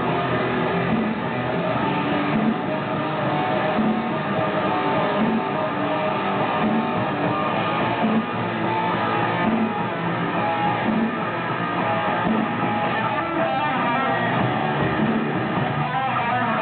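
Live band playing: strummed electric guitar over bass guitar, continuous and loud. The music sounds dull, with no treble.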